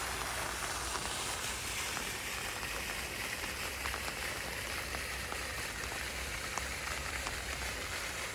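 Steady hiss of water, likely the overflowing farm dam running away, with a few faint ticks scattered through it.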